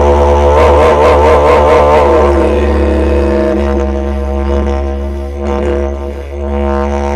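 Didgeridoo music: a steady low drone with overtones that waver and shift for the first couple of seconds, then settle into a plainer drone that softens a little near the end.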